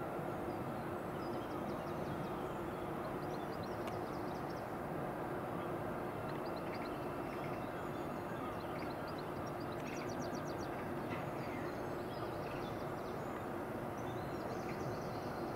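Steady low mechanical drone with a constant hum from an industrial yard, with small birds chirping and trilling over it in short runs.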